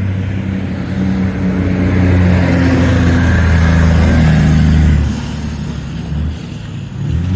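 Big diesel flatbed truck labouring up a hill as it goes by. Its engine is loud from about two seconds in and drops away about five seconds in.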